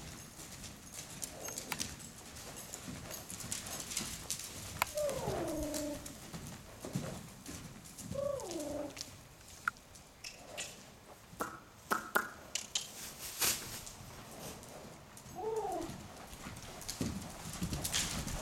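Hoofbeats of a loose Hanoverian mare cantering on the sand footing of an indoor arena: irregular muffled strikes, busiest about halfway through. A few short calls that bend up and down in pitch come in about five, eight and fifteen seconds in.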